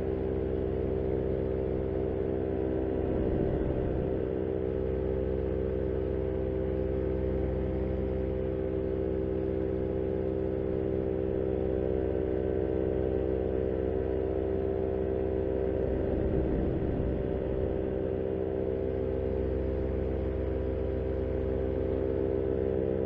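Paramotor engine and propeller running at steady cruise power in flight, an even drone of several steady tones that holds without change.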